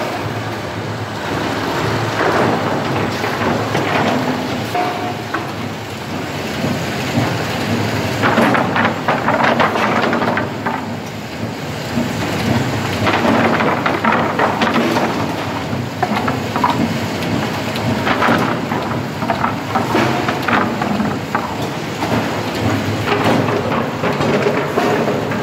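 Board stacking machinery running: chain conveyors and the stacker clattering, with irregular knocks of wooden boards over a steady rumble.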